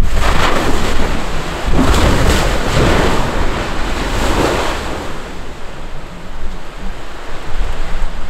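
Strombolian explosion at Etna's Voragine cinder cone: a sudden deep rumbling blast, then several seconds of surging, gushing roar from the vent that fades to a lower rumble after about five seconds.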